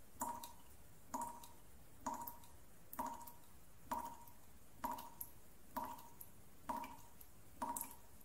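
Leaky kitchen tap dripping steadily, about one drop a second, each drop a short ringing plink, over a faint hiss.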